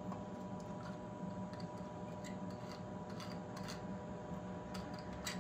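Faint clicks and taps from a metal can of Cox model airplane glow fuel being turned over in the hands, a slightly louder click near the end, over a steady background hum.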